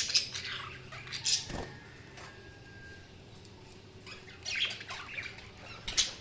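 Budgerigars chirping and squawking in short, scattered bursts, with a quieter stretch in the middle. A brief low thud about a second and a half in.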